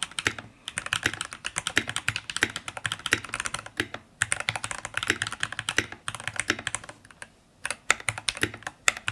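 Fast typing on a Keychron K4 Pro mechanical keyboard with red linear K Pro switches: rapid keystroke clicks in runs, broken by short pauses.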